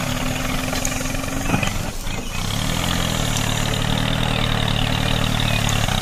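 Tractor engine idling with a steady low note, broken by a few clicks about two seconds in before settling on a slightly different note.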